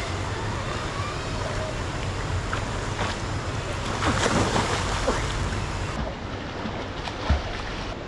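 Steady rush of a fast-flowing river with wind buffeting the microphone, and splashing about four seconds in as a boy jumps and lands in the water. A single sharp thump near the end.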